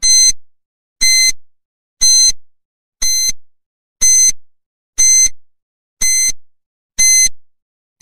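Countdown timer sound effect: a short, high electronic beep once a second, each fading quickly, ticking off the seconds.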